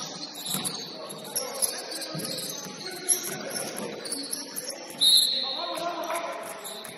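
Basketball game in a gym: the ball bouncing on the court and players' voices, with a short, loud, high-pitched tone about five seconds in.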